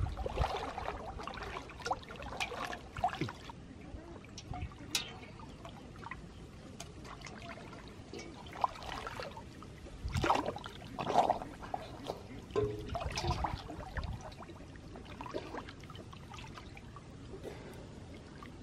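Water sloshing and splashing as a person wades chest-deep through a pond, arms and body pushing through the water in irregular swishes, with a louder run of splashes about halfway through.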